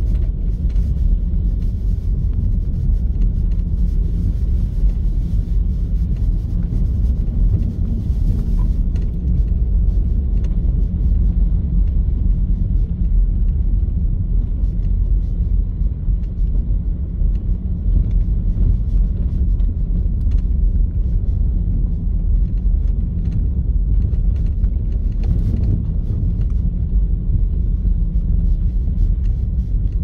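Car driving along a road: a steady low rumble of engine and tyre noise, with a few faint ticks.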